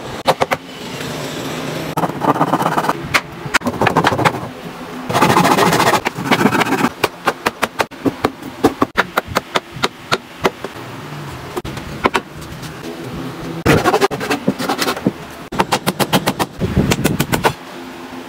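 Hammer driving nails into a wooden frame: runs of sharp, quick knocks, several strokes a second, broken by short pauses.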